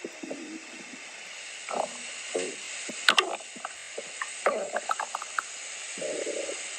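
Stomach growling and gurgling: irregular short squeaks, gurgles and pops over a steady hiss, with a sharp crackle about three seconds in and a longer low gurgle near the end.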